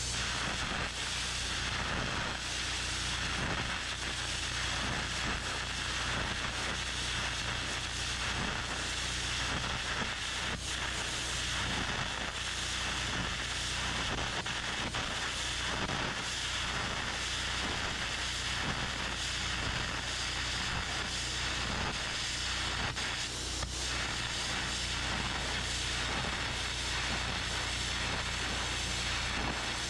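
Electric arc burning on the steel of a truck axle housing at its spring perch: a steady hiss over a low steady hum.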